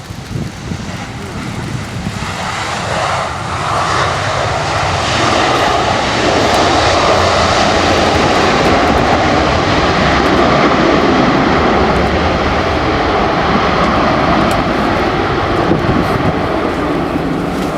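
Jet engines of a Boeing 737-900ER close by, growing louder over the first few seconds and then holding a loud, steady rush.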